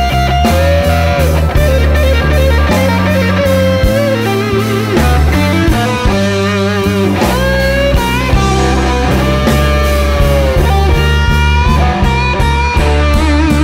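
Rock music led by electric guitar playing sustained notes with bends and vibrato over a steady bass line, with a regular beat ticking above.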